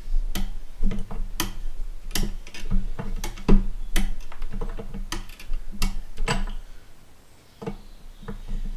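Socket ratchet clicking as a tight broken bolt is wound out of a Massey Ferguson 698 pickup-hitch bracket, about two clicks a second, thinning out near the end.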